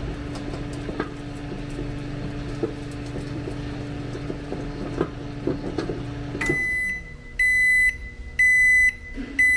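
A Hamilton Beach microwave, converted to a UV curing station, runs its cooling fan and turntable motor with a steady hum. The hum stops about six and a half seconds in as the timer runs out. The control panel then beeps repeatedly, about once a second, to signal the end of the cycle.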